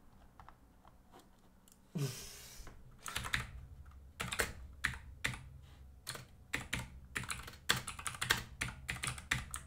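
Typing on a computer keyboard: irregular, uneven key clicks from about three seconds in, after a short burst of noise at about two seconds.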